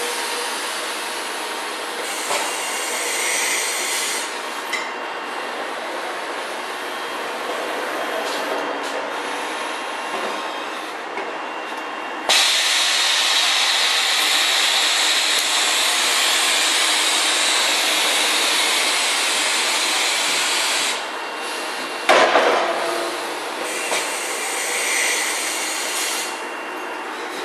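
A compressed-air vacuum lifter for gas cylinders hissing steadily. About twelve seconds in, a louder, higher hiss starts suddenly and cuts off about nine seconds later. Shortly after that comes a single sharp metallic knock.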